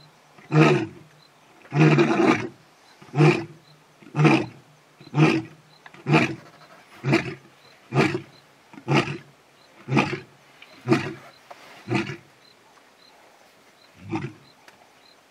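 Male lion calling with a roaring bout: a longer roar followed by a series of short roars about one a second, each shorter and fainter than the last, then one faint roar near the end.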